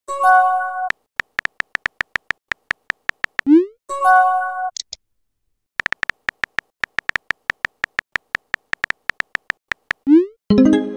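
Phone texting-app sound effects: runs of rapid, evenly spaced keyboard tap clicks as messages are typed, and three times a short rising swoosh followed by a bright chime chord as a message is sent.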